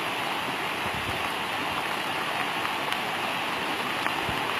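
Steady rushing of a river in flood: fast, muddy floodwater pouring past after heavy rain.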